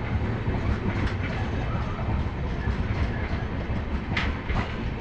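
Passenger train's LHB coaches rolling past on the rails: a steady low rumble of wheels on track with scattered clicks, and two sharp clanks a little after four seconds in.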